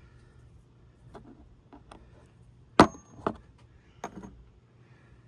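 Small metal hydroboost parts being handled: a few light clicks, and about three seconds in one sharp metallic click with a brief high ring.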